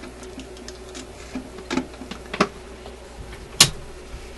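A few sharp clicks and knocks from hands working among equipment on a workbench, the loudest about three and a half seconds in, over a steady low electrical hum.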